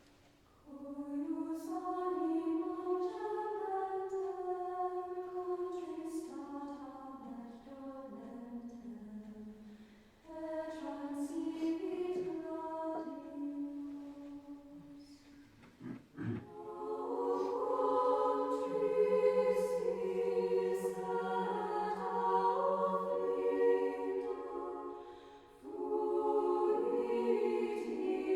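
Choir singing a slow hymn in long held notes, thin at first and fuller with more voices from about halfway. A single knock about 16 seconds in.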